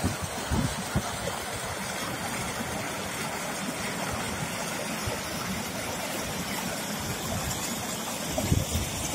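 Shallow stream running over granite rocks, a steady hiss of water. Low buffeting of wind on the microphone comes right at the start and again near the end.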